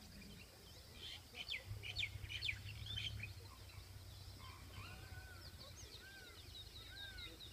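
Wild birds chirping and calling: a busy spell of quick, high chirps in the first few seconds, then a few short arching whistled calls. A faint steady low hum runs underneath.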